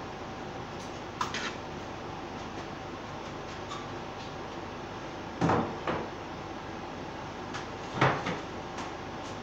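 Two short clattering knocks, about five and a half and eight seconds in, over a steady hum.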